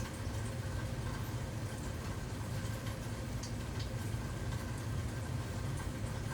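Steady low rumble with a faint hum and a few faint high ticks.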